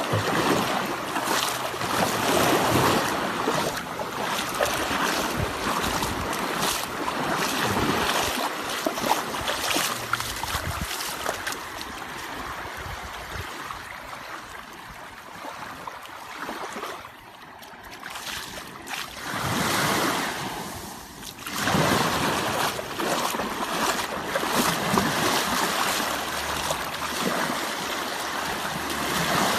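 Sea waves washing and breaking, the noise of the surf swelling and ebbing, with a quieter lull a little past halfway.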